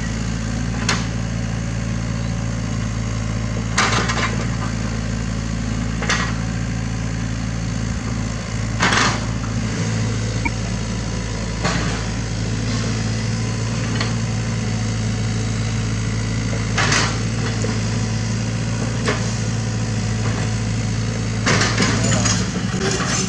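SANY SY75 mini excavator's diesel engine running at a steady working speed while it digs and moves soil, with short sharp clanks from the working gear every few seconds.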